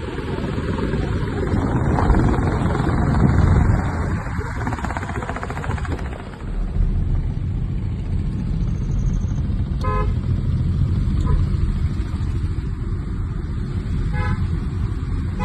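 Steady low rumble of a road vehicle with wind noise on the microphone, and several brief horn toots in the second half.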